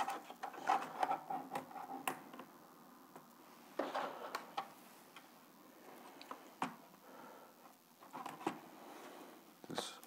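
Lenovo Ideapad 100 laptop keyboard being lifted out of its frame, with scattered light plastic clicks and taps and some handling rustle, busiest in the first two seconds.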